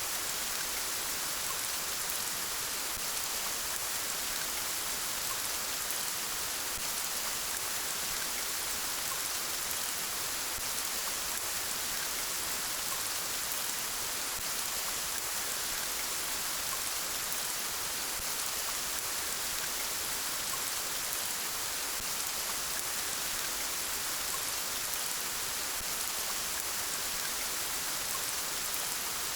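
Steady rain falling, an even hiss with scattered fine drop ticks on a surface.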